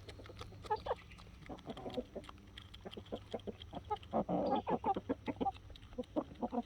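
Buff Orpington chickens clucking: many short clucks from several birds in quick succession, a little louder about four seconds in.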